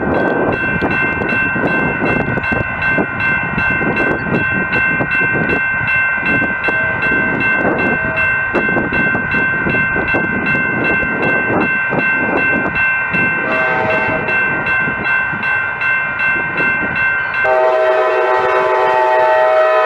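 Grade-crossing warning bell ringing steadily, about two strikes a second, as an Amtrak Pacific Surfliner train led by a Siemens Charger diesel locomotive approaches. About 13 seconds in, the locomotive's horn comes in softly, then blows loud and sustained from about 17 seconds on.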